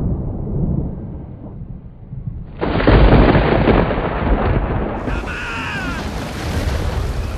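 Thunder rumbling low, then a loud, sudden thunderclap about two and a half seconds in that rolls on. Rising and falling tones join it about five seconds in.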